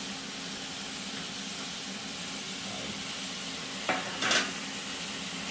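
Beef, onion, leek and freshly added diced peppers sizzling in oil in a stainless steel pot, a steady frying hiss. Near four seconds in, the cooking utensils clack and scrape briefly against the pot twice.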